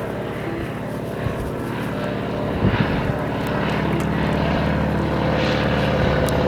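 Biplane's propeller engine running at high power for takeoff, steadily growing louder, with a short thump a little before the middle.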